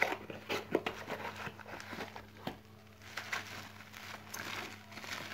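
Cardboard box flaps being pulled open, then bubble-wrap packing being handled, giving a string of short crinkles, rustles and clicks. A faint low hum runs underneath.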